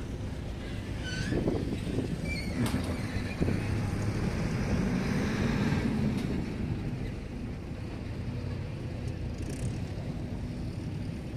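Steady low engine drone, a little louder in the first half.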